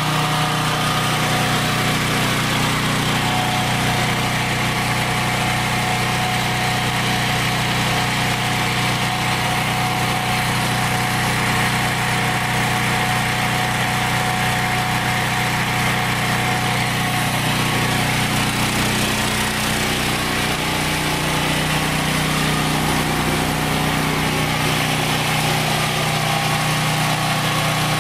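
Westinghouse WGen7500 portable generator's single-cylinder four-stroke engine running steadily at a constant speed.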